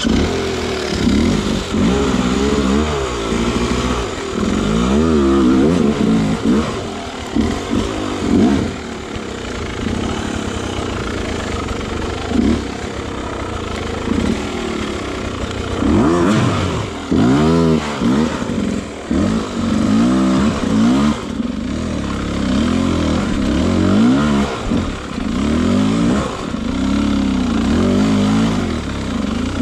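Beta RR 250 two-stroke enduro motorcycle engine revving up and down again and again as it is ridden along a rough single-track trail, its pitch rising and falling every second or two.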